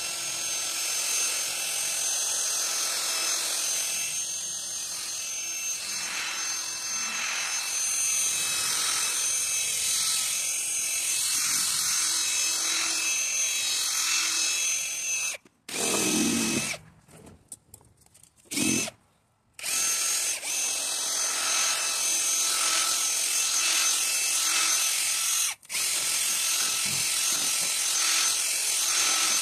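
Cordless drill spinning an abrasive sanding disc against a plastic headlight lens, a steady high motor whine over the hiss of the disc on the plastic. It stops about halfway through, starts twice for a moment, then runs steadily again.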